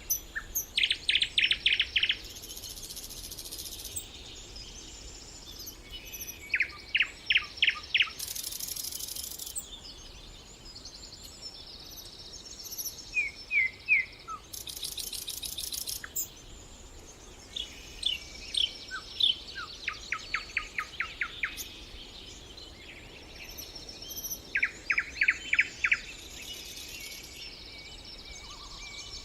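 Songbirds singing in a chorus. One bird repeats a short phrase of about six quick, falling notes every five or six seconds, with very high, thin buzzing phrases in between over a steady background hiss.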